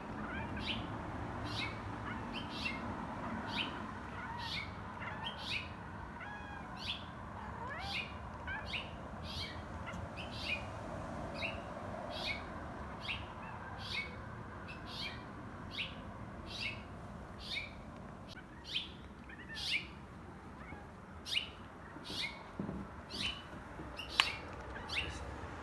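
A small bird giving short, sharp chirps over and over at a steady pace, about one and a half a second. The owner takes the bird for a red finch.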